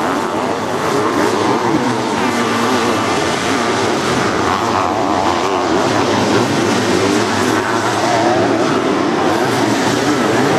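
Sidecar motocross outfit engines revving hard as they race over a dirt track, their pitch rising and falling without a break.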